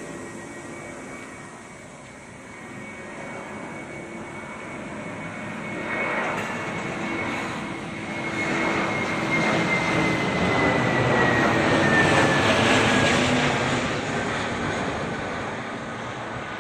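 Airbus A320-family twin-jet airliner on landing approach passing low overhead: its engine noise builds to a peak about twelve seconds in and then fades, with a whine that falls in pitch as the plane goes by.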